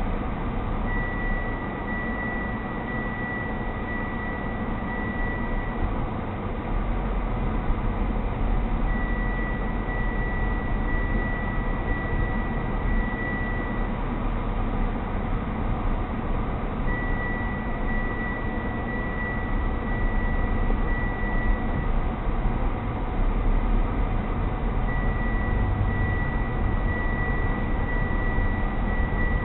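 Car engine and road noise heard from inside the moving car, low and steady. Over it a high electronic beep sounds in runs of about five seconds, repeating about every eight seconds.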